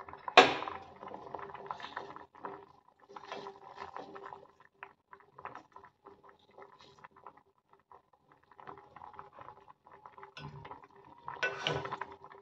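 Chana dal boiling in a stainless steel saucepan, bubbling and crackling irregularly, while a steel spoon skims the froth and clinks and scrapes against the pot. There is a sharp knock about half a second in and a louder burst of spoon-on-pot clatter near the end, over a faint steady hum.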